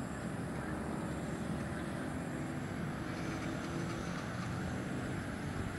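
Steady low rumbling background noise picked up by a phone's microphone.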